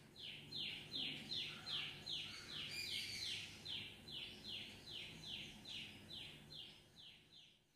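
A bird calling in a steady series of short, faint, falling chirps, about two to three a second, which stop shortly before the end.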